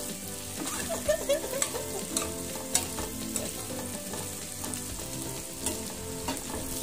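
Sliced potatoes, carrots and bell peppers frying in a non-stick pan with a steady sizzle, stirred with a metal spoon that clicks and scrapes against the pan now and then.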